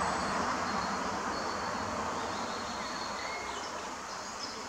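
Steady outdoor hiss, slowly fading. About three and a half seconds in, short, high, thin calls that drop in pitch start repeating about twice a second: peregrine falcon chicks begging while the adult feeds them.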